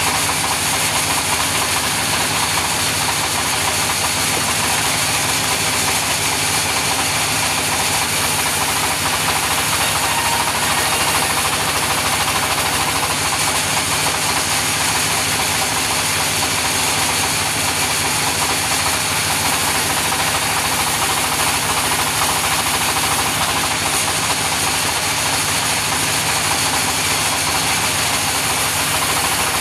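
Engine-driven sawmill saw running steadily without a break, a constant engine note with an even hiss over it.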